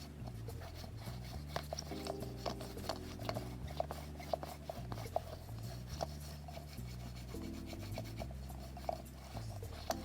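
Lint roller rubbing and rolling over a plush toy's fur, with short sticky crackles, over background music with low chords changing every second or two.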